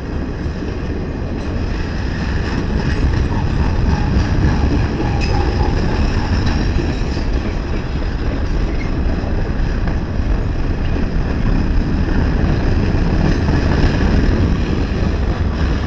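Pan Am Railways freight train's boxcars and an autorack rolling past, with a loud, steady rumble of wheels on the rails.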